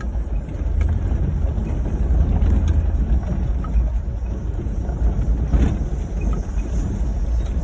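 Ford Crown Victoria driving over rough off-road ground: a steady low rumble of engine and tyres, with a few sharp clicks and knocks.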